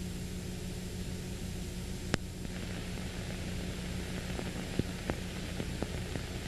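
Steady hiss with a low electrical hum, with one sharp click about two seconds in and a few fainter clicks near the end.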